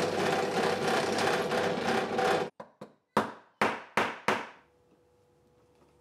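Drill press running, its bit cutting into the metal case of a Master Lock 4400 Bluetooth padlock; it stops after about two and a half seconds. Then comes a series of about five sharp knocks, each ringing briefly.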